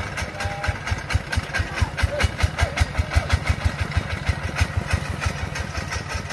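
Single-cylinder diesel engine of a công nông farm truck running with a steady low thud, about seven beats a second, louder for a few seconds in the middle.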